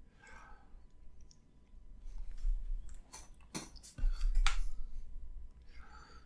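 Stylus tapping and clicking on an iPad's glass screen while drawing: a few sharp clicks in the middle, the loudest about three and a half to four and a half seconds in, with low dull bumps beside them.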